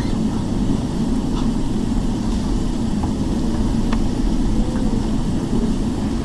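Cabin noise of a Boeing 777-300ER taxiing slowly on the ground: a steady low rumble, with its GE90 engines at taxi idle.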